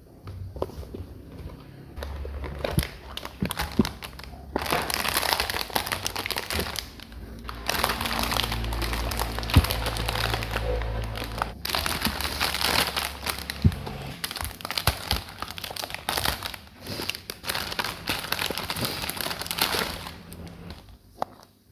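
Plastic packaging of a Gunpla model kit crinkling and rustling as it is handled, with scattered sharp clicks and taps.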